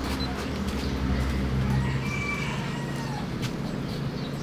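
A rooster crowing once, a drawn-out call that rises and falls, about two seconds in, over a low hum.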